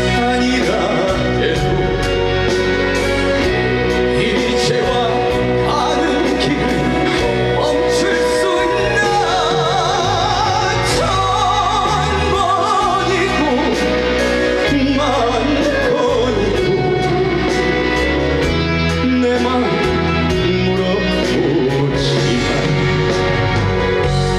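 Live trot song: a male vocalist singing a wavering melody over a band backing with a steady beat.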